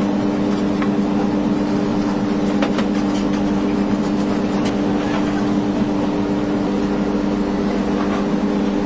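Steady mechanical hum, as from a running kitchen machine or ventilation fan, with a few faint clicks over it.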